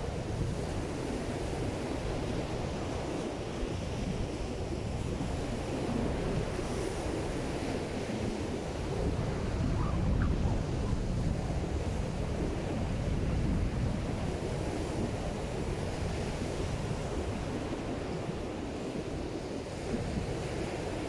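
Surf breaking and washing up a sandy beach, with wind buffeting the microphone in a steady rumble.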